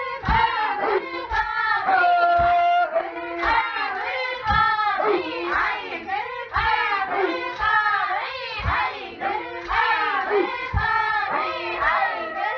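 Ainu women singing a traditional dance song together, several voices overlapping, with a sharp hand clap about once a second keeping the beat.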